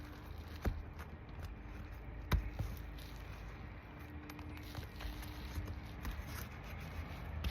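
Hand work loosening brittle roof shingle hip caps: faint scraping and small ticks, with two sharp clicks about a second apart early on, over a low steady rumble.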